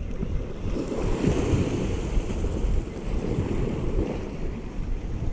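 Sea waves washing against a rocky shore, with wind buffeting the microphone.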